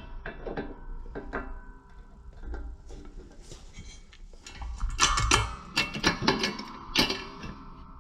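Clinks and taps of steel parts being handled as a U-joint cross and its needle-bearing caps are fitted into a PTO yoke, with a quick run of sharper clinks about five seconds in.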